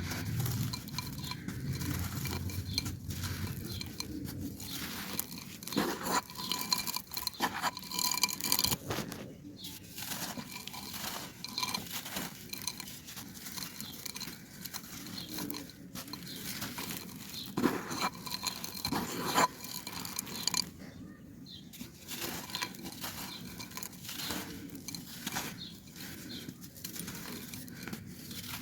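Dry clay pot fragments and sand being crushed and crumbled, an irregular run of crunches and crackles with a few sharper snaps and two brief lulls.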